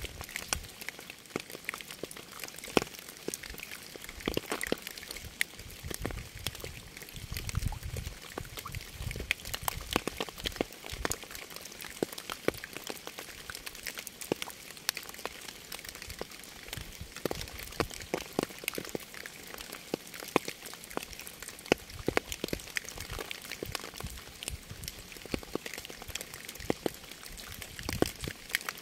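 Rain falling: a steady hiss with many irregular, close drops ticking onto a surface. A low rumble swells briefly about seven to ten seconds in.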